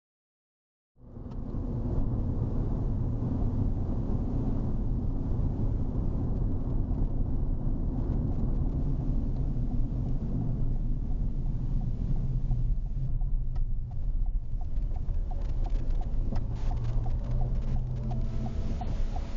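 Car travelling on the road, heard from inside the cabin as a steady low rumble of engine and road noise that starts about a second in. Near the end comes a regular light ticking, about two or three ticks a second.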